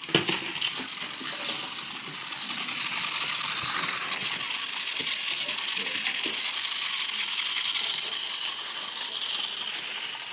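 Dogs tussling over a toy tarantula: a sharp knock just at the start, then several seconds of continuous scuffling and rattling noise that grows louder in the middle and eases toward the end.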